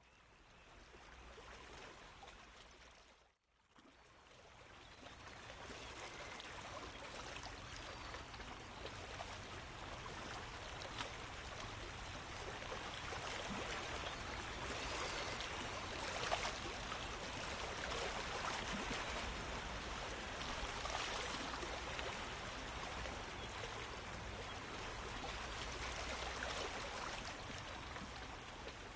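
Running water like a flowing stream, an even rush with light trickling: it fades in, cuts out briefly about three and a half seconds in, then swells back and holds steady.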